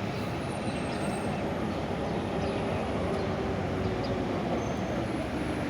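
Steady rumble of a large vehicle, a bus, running close by with road and traffic noise.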